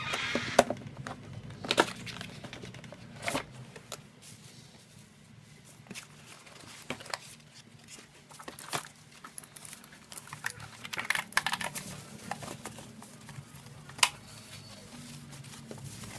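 A mechanical keyboard being unboxed: cardboard box and packaging handled, with crinkling of wrapping and scattered knocks and clicks, and two busier stretches of crinkling near the start and about two-thirds of the way through.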